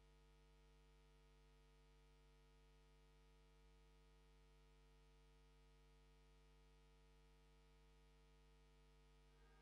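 Near silence with only a faint steady hum.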